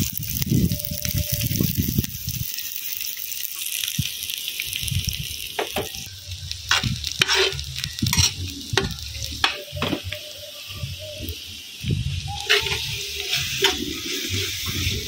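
Chopped onions sizzling in hot oil in a large kadai. From about five and a half seconds in, a metal spatula scrapes and clicks against the pan as the onions are stirred. A low rumble comes and goes underneath.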